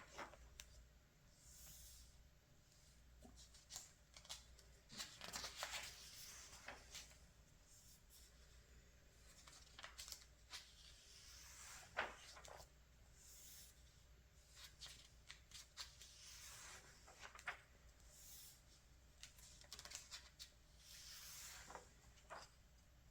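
Glossy magazine pages being turned and handled: faint paper rustles and swishes, with scattered small clicks and taps.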